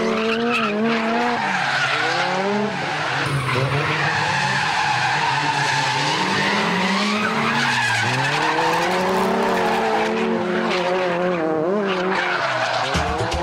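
Drift car sliding sideways through corners, its engine revving up and down again and again while the tyres squeal.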